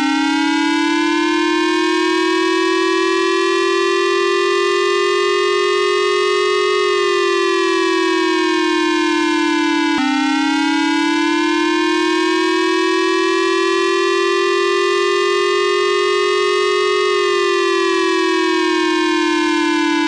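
Japanese civil-protection armed-attack warning siren (the J-Alert war siren), loud and steady. It rises slowly in pitch for about seven seconds, slides back down, then drops and starts the same rise again about halfway through, two cycles in all.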